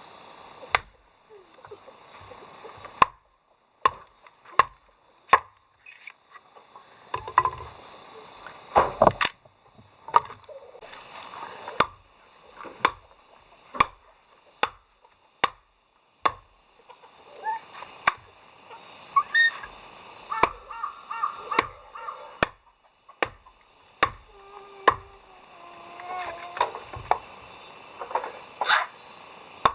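An axe chopping wood: single sharp strikes, roughly one a second, in several short runs.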